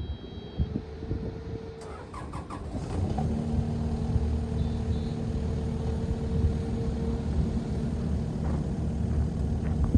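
Kubota KX080 crawler excavator's diesel engine running with a steady low rumble and a steady whine; about three seconds in, after a few short knocks, it gets louder and a second, lower whine joins in.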